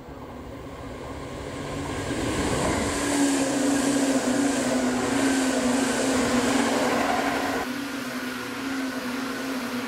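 Seibu 10000 series "New Red Arrow" limited-express train passing close at speed: the rumble of wheels on rail swells over the first three seconds, stays loud, and eases off after about seven seconds, with a steady hum running under it.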